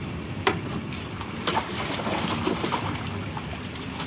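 Large catfish thrashing in a shallow tub of water as a landing net is swept through and scoops them up, a steady churning of water with several sharp splashes and slaps.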